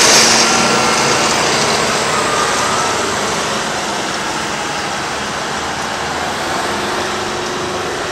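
Oshkosh M1070 heavy military truck's diesel engine running as the truck drives slowly over dusty ground, growing gradually quieter.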